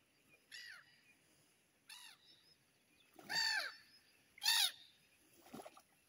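Gulls calling as they swoop down to feed on the water: five short calls about a second apart, each rising then falling in pitch, the third and fourth loudest and the last fainter.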